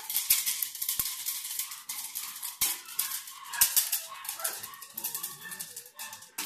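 Rapid, continuous rattling of a training stick shaken over a puppy during tug and bite play. Faint puppy growls come in about two-thirds of the way through.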